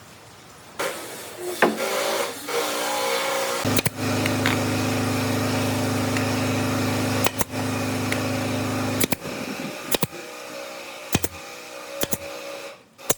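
Electric motor of a workshop power tool running with a steady hum, in several stretches separated by abrupt cuts and clicks, steadiest and loudest in the middle.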